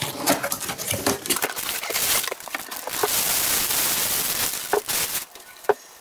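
A cardboard kettle box being opened by hand and a stainless-steel kettle pulled out of its packaging: a run of clicks and rustles, then a steady rustling for about three seconds, and a couple of light knocks near the end.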